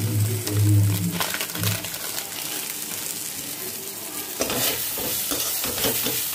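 A flat metal spatula scraping and stirring a thick onion-tomato masala in a metal kadai while it fries with a steady sizzle; the scraping strokes come thick and fast from about four seconds in. A low hum sounds during the first couple of seconds.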